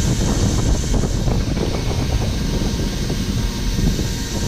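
An engine running steadily, with wind buffeting the microphone in irregular gusts.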